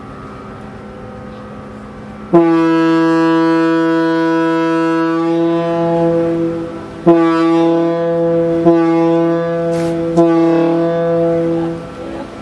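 The MV Queen of Cumberland ferry's ship horn sounds one long blast of about four and a half seconds, then three shorter blasts in quick succession, as the ship departs its berth.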